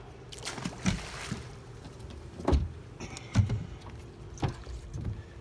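Several dull thumps and knocks on a boat's deck and hull, the loudest two in the middle, over a faint steady hum.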